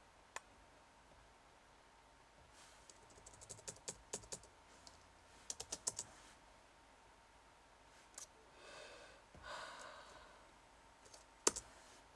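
Laptop keyboard typing in two short bursts of key clicks, with single clicks between and a sharper, louder click near the end. A soft breathy noise comes around nine seconds in.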